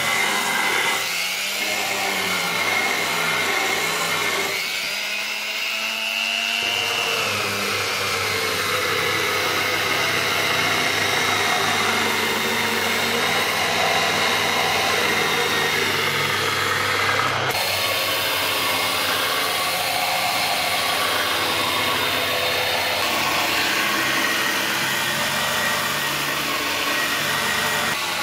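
Handheld electric polisher running steadily with a thin whine, its small wheel grinding and brushing across the surface and edges of a stainless steel channel letter. The sound changes abruptly a couple of times past the middle.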